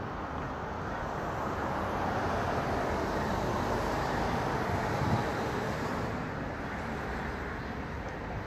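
Road traffic: a passing vehicle's tyre noise swelling over a few seconds and fading away, with a brief low thump about five seconds in.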